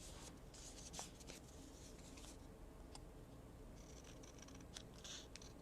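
Faint rustling and light scraping of paper being handled and folded, with a small tap about a second in.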